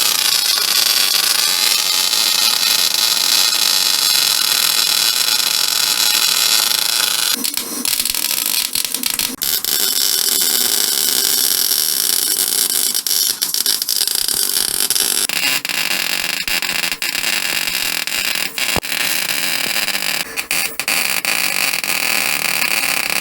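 Arc welding new sheet-steel floor-pan patches into a car body: a steady crackling hiss. It breaks off and resumes in a slightly different tone about a third and two-thirds of the way through.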